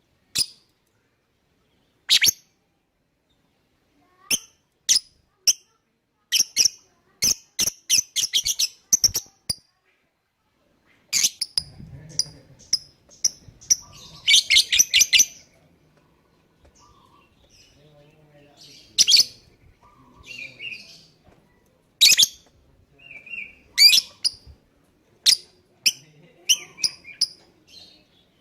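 Lovebird calling with sharp, shrill chirps: single chirps a couple of seconds apart at first, then quick runs of chirps and a short burst of dense chattering about halfway through, before scattered chirps again.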